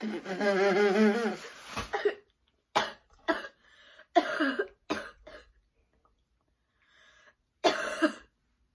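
A girl gagging and coughing as she spits out a bad-tasting candy into a paper bag: a long wavering groan, then a string of short coughs spread over the next several seconds.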